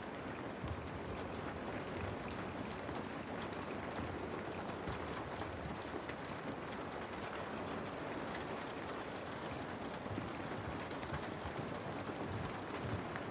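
Steady rain falling on a window: an even hiss with scattered faint drop ticks.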